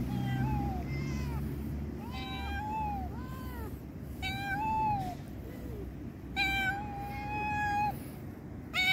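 Street cats meowing over and over: a string of short meows that rise and fall in pitch, then one long, level meow lasting about a second and a half near the end.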